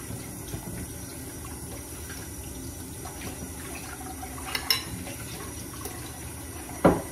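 Kitchen tap running steadily into a stainless-steel sink, with two sharp knocks of utensils, the louder one near the end.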